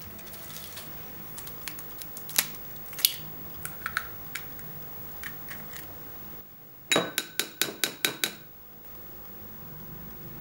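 Scattered light taps and clicks of gloved hands handling food on a ceramic plate. About seven seconds in comes a quick run of about eight sharp, ringing clinks, as a plastic egg separator is tapped against a glass bowl.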